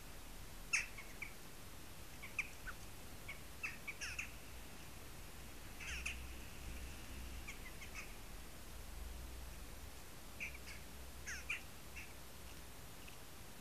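Birds calling with short, sharp chirps, singly and in little clusters at irregular intervals, over a faint steady hiss.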